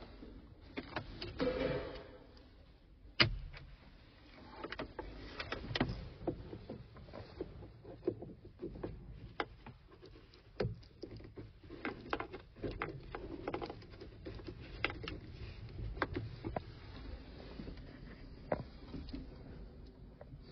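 Scattered clicks, knocks and rattles from a diagnostic cable and its connector being handled and plugged in inside a tractor cab, over a faint low hum. The sharpest click comes about three seconds in.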